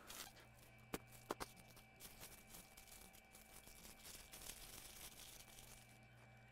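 Near silence: room tone with a faint steady hum, a few faint clicks about a second in, and light handling rustle.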